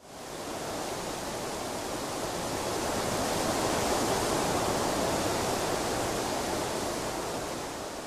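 Steady rushing noise with no tone in it, fading in at the start, swelling to its loudest about halfway through and easing off slightly near the end.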